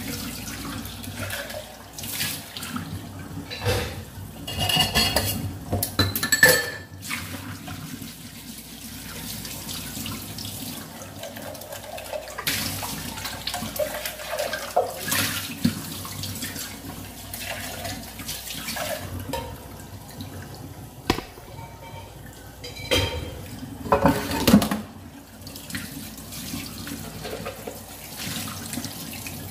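Water running from a tap into a sink, with sharp knocks and clatters now and then, the loudest about five seconds in and again around twenty-four seconds in.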